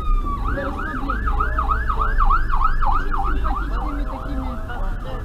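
Emergency-vehicle siren in a fast yelp, its pitch rising and falling about three times a second, fading somewhat near the end, over the low rumble of the car's engine and road noise.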